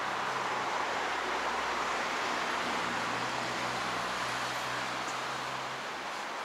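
Steady road traffic noise from a multi-lane city street: a continuous wash of tyre and engine noise from passing cars, with a low engine hum underneath that fades near the end.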